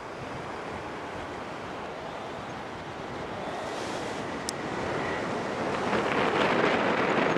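Air rushing over the microphone during flight under a tandem paraglider: a steady rushing noise that grows louder from about halfway through.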